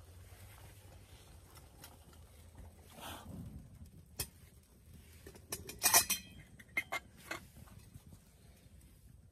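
Metal camp pot and lid clinking and clattering as the pot of hot water is set down on stone beside the fire and its lid is lifted off. The loudest clinks come about six seconds in, among faint scattered crackles from the wood fire.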